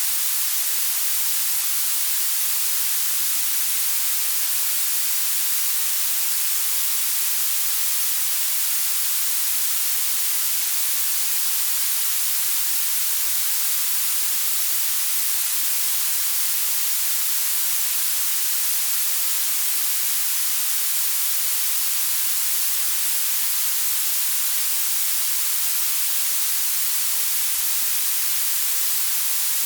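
Synthetic blue noise: a steady, unbroken hiss whose energy climbs toward the highest pitches, with almost nothing in the bass.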